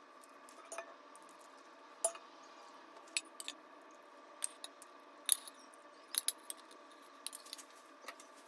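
Irregular light clinks and taps of kitchen utensils and dishes, about a dozen sharp ticks over a steady faint hum.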